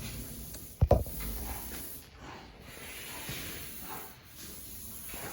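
A single sharp knock about a second in, followed by faint rustling and hiss.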